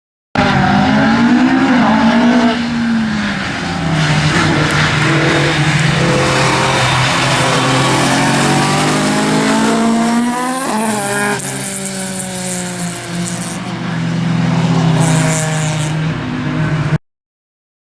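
Rally car engine revving hard, its pitch rising and falling repeatedly as the driver works the throttle and gears, with a sharp rev-up about halfway through. The sound drops out briefly just after the start and again near the end.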